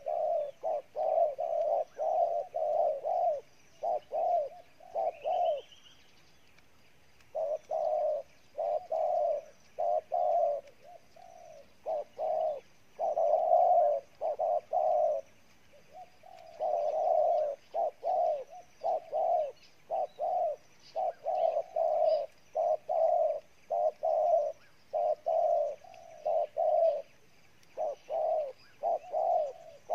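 Spotted dove cooing hard: rapid runs of short, low coo notes in long bouts with a couple of brief pauses, the excited display coo Vietnamese keepers call "gù".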